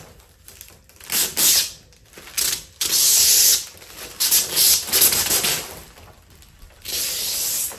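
Protective plastic film being peeled off a plexiglass frame sheet and crumpled by hand, crinkling and rustling in about five short spells with brief pauses between.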